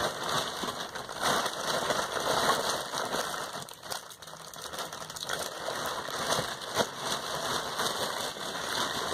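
Plastic wrapping and bags crinkling and rustling as packaged products are handled, with small clicks and knocks among them.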